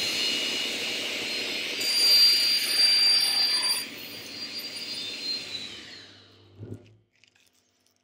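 Felder table saw with a 60-tooth crosscut blade running with a high whine. It gets louder for about two seconds as the blade cuts through a painted larch board, then winds down after switch-off, the whine sagging in pitch before stopping about seven seconds in.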